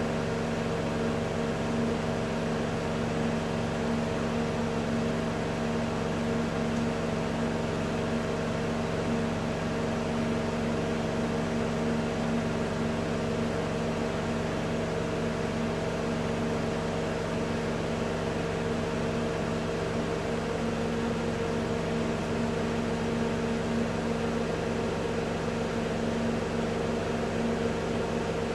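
Melag Vacuclav benchtop autoclave running a cycle: a steady mechanical hum with several steady low tones, one of which drops out about two-thirds of the way through.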